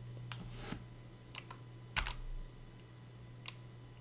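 A few scattered keystrokes on a computer keyboard, including the Enter key that runs a typed command; the sharpest comes about two seconds in. A low steady hum lies underneath.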